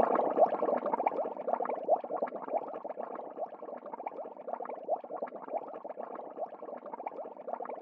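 Bubbling sound effect: a dense stream of small bubbles blubbing, loudest at the start and gradually fading.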